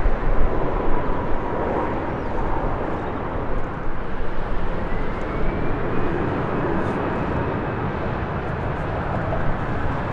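Airbus A320 airliner's jet engines running, a steady rushing noise, with a faint whine that rises about halfway through.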